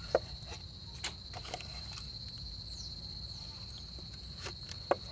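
A steady high-pitched insect trill, with a few short sharp clicks: one just after the start, one about a second in, and one near the end.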